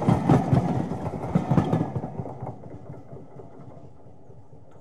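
Train carriages passing, wheels clicking over rail joints. The sound fades out about two to three seconds in, leaving a faint hiss.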